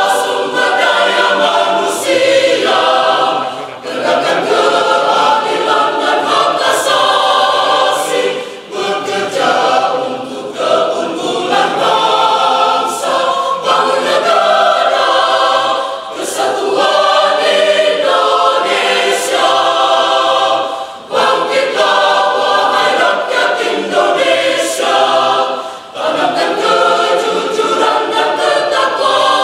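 Mixed-voice church choir of men and women singing, its sustained phrases broken by short breaths about every four to five seconds.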